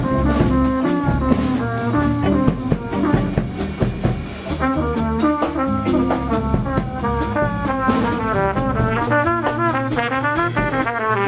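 Jazz trumpet solo over drum kit and bass in a 9/8 groove, the trumpet playing quick runs of notes in the last few seconds.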